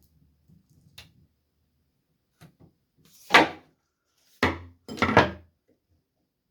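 Workbench handling sounds: a light click, then three loud, short knocks of hard objects being handled and set down, about a second apart.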